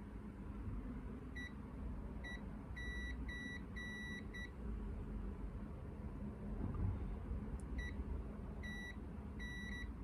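Multimeter continuity beeper sounding in short, irregular beeps of varying length as probes touch points on the board. The beeps come in a cluster in the first half and again near the end, over a low steady hum.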